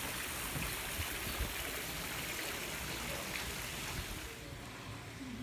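Three-tiered stone fountain splashing into its basin, a steady rush of falling water that fades about four seconds in.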